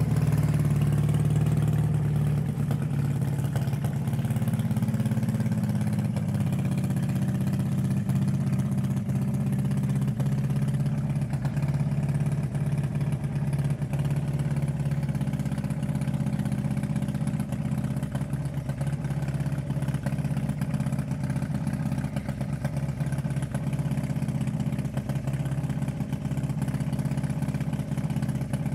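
Dnepr MT10-36 650 cc flat-twin motorcycle engine in a go-kart, idling steadily with no revving.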